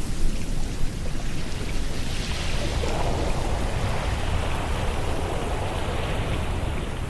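Ocean surf breaking and washing in, swelling about two seconds in and slowly easing, with wind buffeting the microphone in an uneven low rumble.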